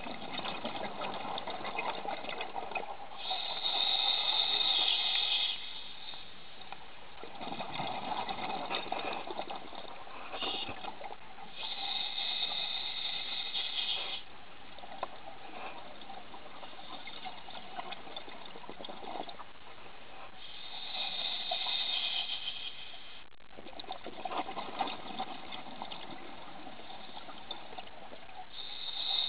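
Scuba diver breathing through a regulator underwater: hissing inhalations alternate with bubbling exhalations, about one breath every eight or nine seconds.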